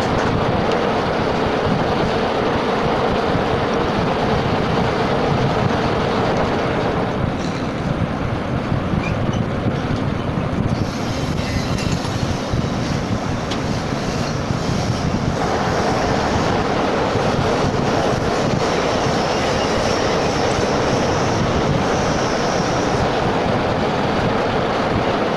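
A metalworking machine tool running steadily and cutting steel stock for new pump gears: a loud, dense mechanical noise. A steady tone in the first seven seconds gives way, and the sound shifts again about eleven and fifteen seconds in.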